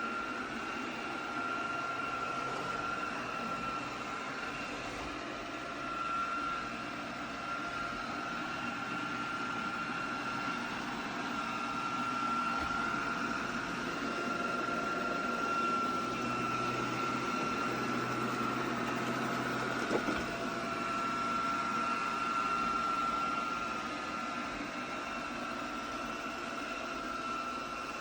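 Lubluelu L20 robot vacuum running steadily while cleaning: a whirring suction fan and brushes with a high whine held at one pitch, and a single short knock about twenty seconds in.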